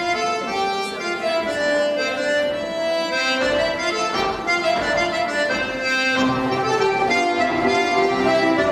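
Accordion playing a polka-march dance tune, a melody of steady held notes over a chordal accompaniment.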